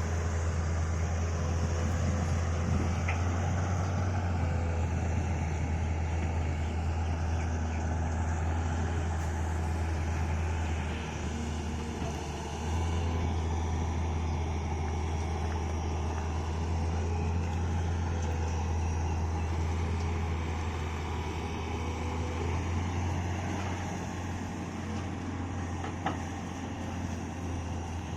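Excavator diesel engine running steadily with a low hum, easing off briefly about eleven seconds in, with a few faint clicks.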